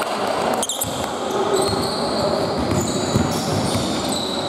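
Basketball being played in a sports hall: sneakers squeaking on the court floor, running footsteps and the ball bouncing, echoing in the large hall.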